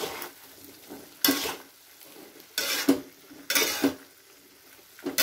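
Metal spatula scraping and tossing a vegetable stir-fry in a metal wok, in short strokes about a second apart, with a soft sizzle between strokes.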